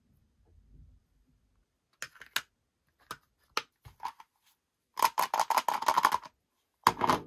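Hard plastic clicking and rattling from a small toy figure's purple web-shaped plastic case being handled. A few separate sharp clicks come first, then a quick run of clicks about halfway through, and two more near the end.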